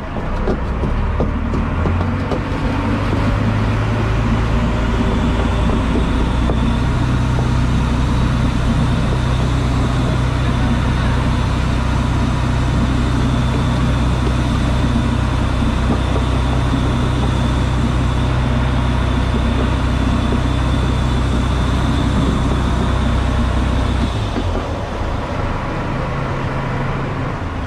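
Fishing boat's engine running steadily under way, picking up within the first few seconds and easing back near the end.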